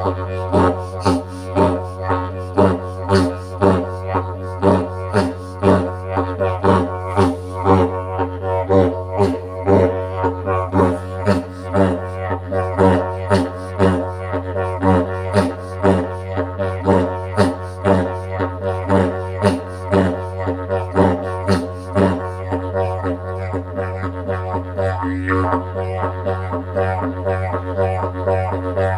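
A didgeridoo played with an unbroken low drone, pulsed in a rhythm of about two beats a second that eases into a steadier drone near the end.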